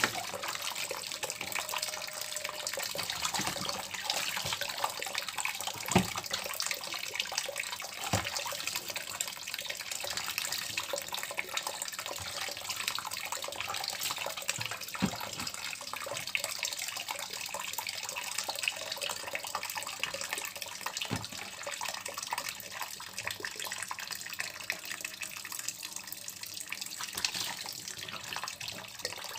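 Kitchen tap running steadily into a plastic basin in a stainless steel sink, with wet splashing as a cat's soaked fur is rubbed and washed by hand. A few short knocks come through the running water.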